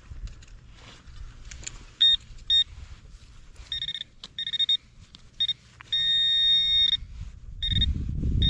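Handheld metal-detecting pinpointer beeping as its tip is probed through the loose dirt of a dig hole. Short high beeps come closer together and merge into a near-steady tone about six seconds in, the sign that the tip has closed on a buried metal target, an aluminum nail. A low rumbling noise joins near the end.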